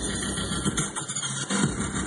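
Bass-heavy music played loud through two Sundown SA-15 15-inch subwoofers, with a deep steady bass under a repeating beat.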